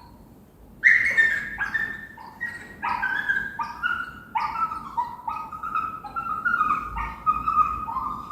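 Dog whining and whimpering: a run of short high-pitched whines that step up and down in pitch, starting about a second in, the first one the loudest.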